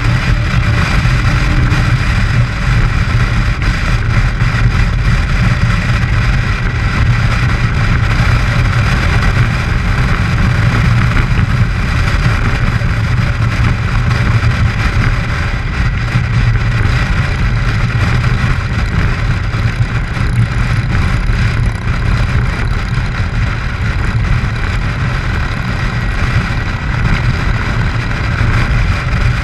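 Motorcycle riding at a steady road speed: a constant low engine drone under steady wind rush, heard from on the bike behind its windshield.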